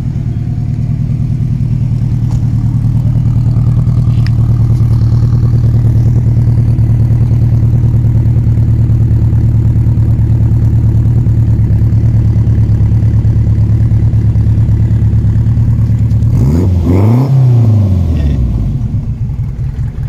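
Renault 5 Turbo 2's turbocharged four-cylinder engine idling steadily, heard close to its tailpipe. A single blip of the throttle near the end sends the revs up and straight back down to idle.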